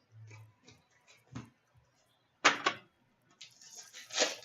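Trading card packs and cards being handled: scattered light clicks, a sharp double snap about two and a half seconds in, and a crinkling rustle near the end.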